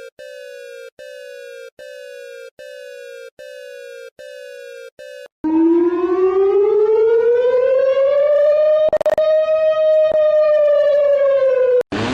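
Emergency alert alarm tones: a repeating beep, each tone sliding slightly down in pitch, about one and a quarter a second for five seconds. Then a much louder siren tone that rises in pitch, holds and sags a little over about six seconds, and cuts off suddenly near the end.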